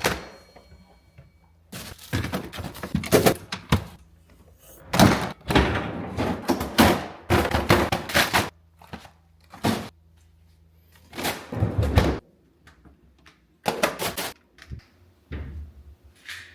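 Groceries being put away: fridge and cupboard doors opening and shutting and packs set down with thunks, in an irregular run of short knocks and rustles with brief pauses.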